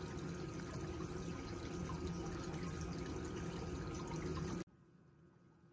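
Water running and splashing steadily into a shallow plastic tub, stopping abruptly about four and a half seconds in.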